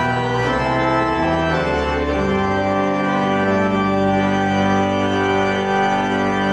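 Church organ with choir and congregation singing the close of a hymn, moving about two seconds in to a long held final chord.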